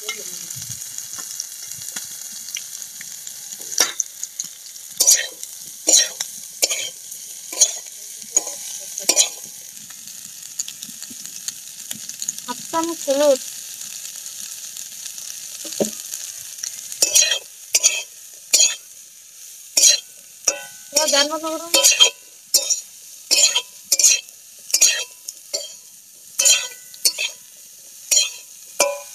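Cauliflower florets sizzling in hot oil in a metal karahi, with a metal spoon scraping and knocking against the pan as they are stirred. The stirring strokes are spaced out at first and come quicker, about two a second, in the second half.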